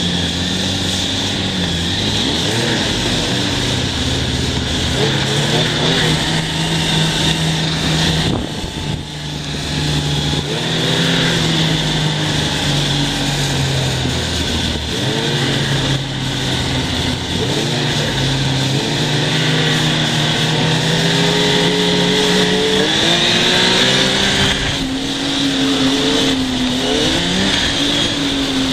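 Yamaha Nytro snowmobile's four-stroke triple engine running under way, its pitch rising and falling with the throttle, with a brief let-off about eight seconds in. A steady high hiss runs over it.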